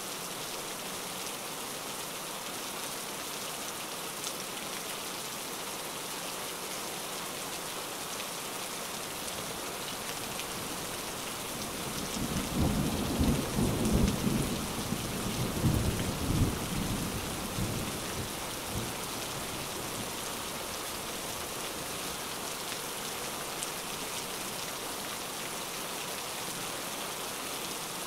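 Background rain-and-thunder soundscape: steady rain, with a roll of thunder rumbling in from about twelve seconds in and fading out about seven seconds later.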